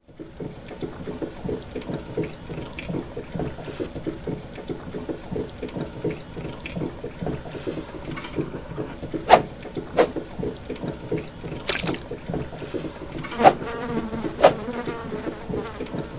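Flies buzzing steadily in a swarm, with several sharp clicks over the buzzing in the second half.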